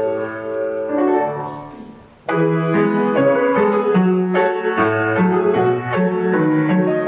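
Piano playing accompaniment for a dance class. One phrase dies away about two seconds in, and a new phrase of struck chords and melody starts right after.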